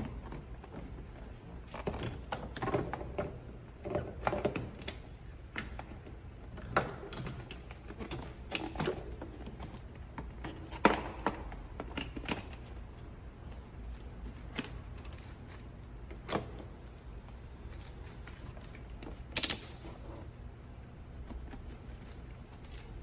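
Scattered clicks and knocks of objects being handled, irregular and unevenly spaced, over a low steady hum, with one short hiss about nineteen seconds in.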